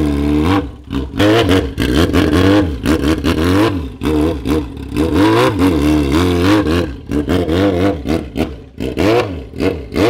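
Yamaha XJ6's 600 cc inline-four on its stock exhaust, revved again and again at low speed, the pitch rising and falling with each twist of the throttle and easing off briefly a few times.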